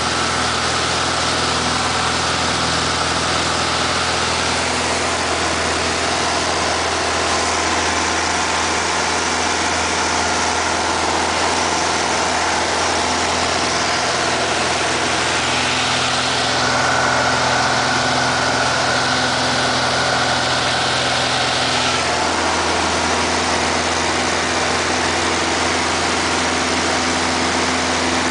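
Light aircraft's piston engine and propeller running steadily, heard from inside the cabin in the climb just after takeoff.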